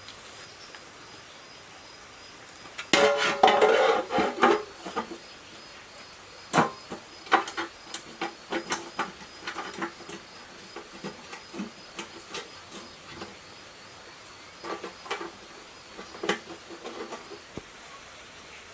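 Hard objects clattering briefly about three seconds in, then a scattered series of light knocks and clinks, as of things being handled and set down.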